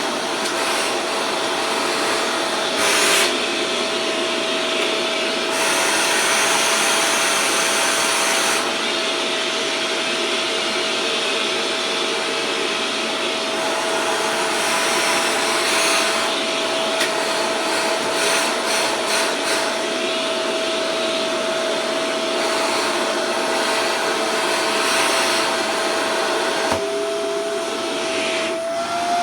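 Vacuum cleaner running steadily: a constant motor whine over a rush of air, the rush swelling and easing now and then. Near the end the whine steps up slightly in pitch.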